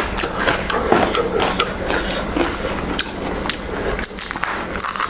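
Close, dense crackling and clicking as a crisp pani puri shell is cracked open with the fingers, with some clinks of dishes on the table.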